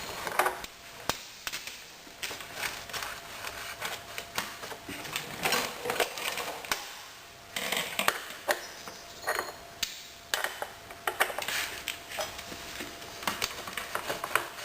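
Irregular metal clicks, taps and clinks of hand tools working at a stuck rear axle bolt on a Honda CRF150R dirt bike, with some scraping in between.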